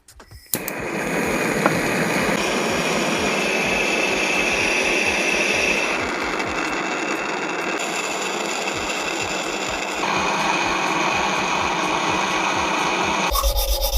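A small electric power tool running steadily. Its sound changes abruptly several times, as between cut-together clips, and near the end gives way to a lower rubbing.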